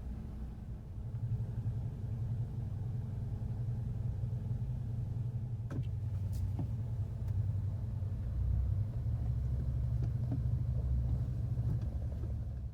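Car engine idling with a steady low rumble. A few faint ticks come about halfway through.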